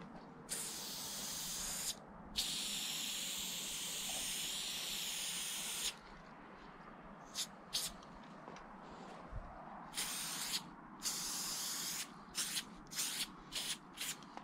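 Aerosol spray-paint can spraying in hissing blasts: a short and a long spray in the first six seconds, then a run of shorter bursts and quick spurts.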